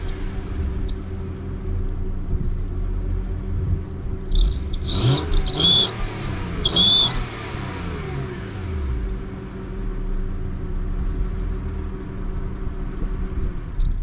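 Honda Accord engine running with a turbo whistle pushed into its exhaust tailpipe, revved once about four seconds in. As the revs climb, the whistle gives a few short high-pitched whistles, then the engine falls back to idle.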